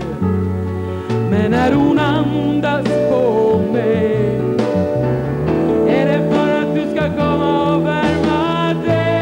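A woman singing into a handheld microphone, her held notes wavering with vibrato, over instrumental backing with long sustained low notes.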